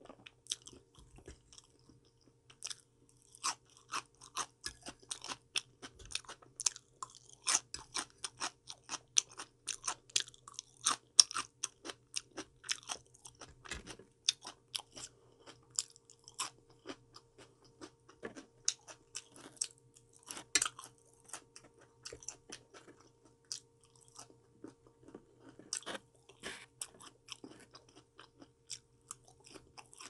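A person chewing crunchy salad vegetables and fruit: a rapid run of crisp crunches that thins out in the middle and picks up again near the end. A faint steady hum runs underneath.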